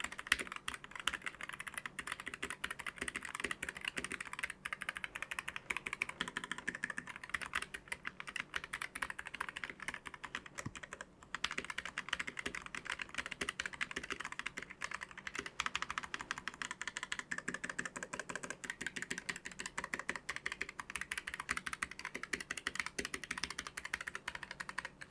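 Typing on a Keychron K3 Pro low-profile mechanical keyboard fitted with tactile Gateron low-profile 2.0 brown switches: a dense, continuous stream of keystrokes, with a brief pause about eleven seconds in.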